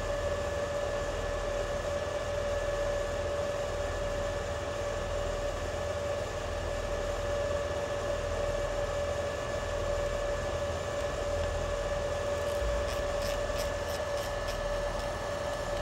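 Fronius TPS 320i welding power source switched on and idling: a steady hiss with a constant whining tone from its fan and electronics. Near the end a short run of soft clicks as its control dial is turned.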